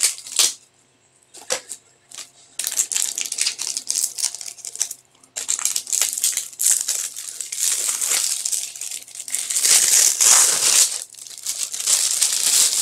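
Plastic wrapping crinkling as it is handled and pulled off a rolled diamond painting canvas. It comes in scattered rustles, goes quiet from about half a second in until nearly three seconds, then runs almost continuously, loudest near the ten-second mark.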